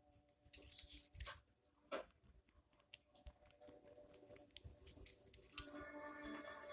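Pencil scratching on paper in short, irregular strokes while drawing. Faint television audio comes back in the background near the end.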